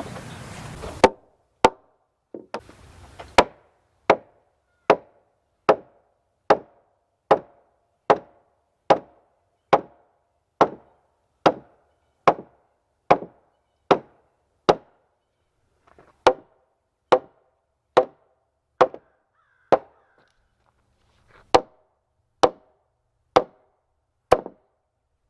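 Hammer blows on a log floor joist, struck evenly a little faster than one a second, with two short pauses along the way. A steady rushing noise cuts off about a second in, just before the first blow.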